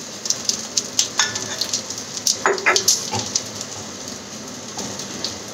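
Okra frying in hot mustard oil in a kadai, sizzling steadily with a fine crackle. A couple of brief knocks come about two and a half seconds in.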